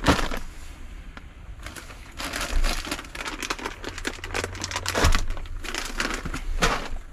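Plastic bags of dry cat food and plastic shopping bags crinkling and rustling as they are handled and lifted, with a soft knock about five seconds in.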